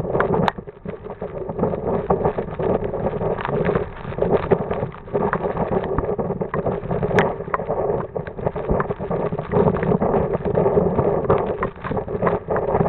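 Strong gusty wind buffeting the microphone, rising and falling in waves, with scattered crackles.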